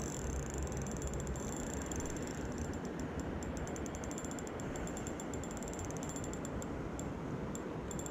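Spinning reel ticking while a big barbel is played on light braid: the drag clicks in a fast run at first, then in sparser, irregular ticks, over a steady low rush.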